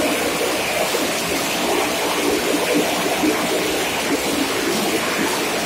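Car and motorcycle engines running continuously as they circle the vertical wooden wall of a well-of-death drum, with the noise echoing inside the drum. The result is a loud, steady din without let-up, with a low engine hum running through it.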